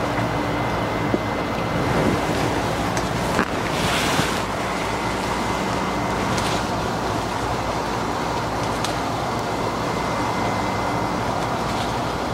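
Steady wind noise rumbling on the microphone outdoors, with a brief rustle about four seconds in and a few faint ticks.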